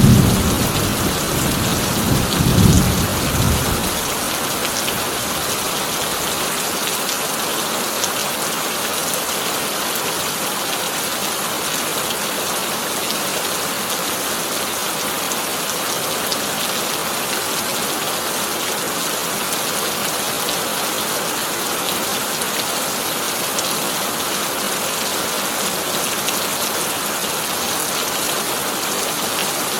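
Heavy rain falling on a tin roof as a steady, even hiss. Thunder rumbles loudly in the first few seconds, swelling twice, and fades out about four seconds in.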